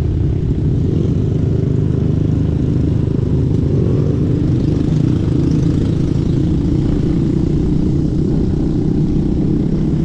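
A motorcycle engine running steadily while riding along a road, mixed with a dense low rumble of wind and road noise.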